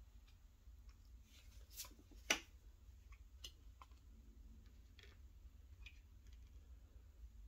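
Tarot cards handled and laid down on a cloth-covered table: faint card taps and slides, with one sharper click a little after two seconds in.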